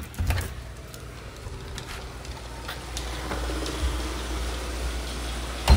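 A front door unlatched and pushed open, then footsteps and a dog's claws clicking on a hardwood floor as a leashed dog walks in, over a low rumble of the phone being handled. A loud sharp knock near the end.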